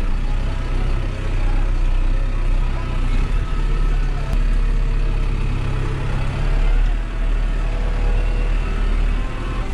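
New Holland tractor's diesel engine running steadily, a deep low drone that shifts slightly in pitch a few times.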